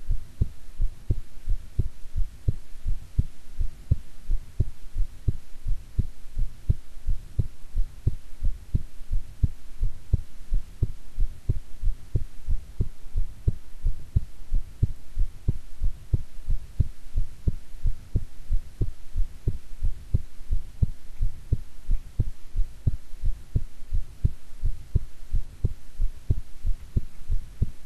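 A human heartbeat heard close up: a steady, even rhythm of paired low lub-dub thumps.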